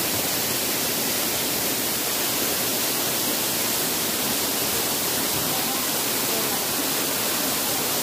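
Waterfall and rocky stream rushing: a steady, even hiss of falling and flowing water.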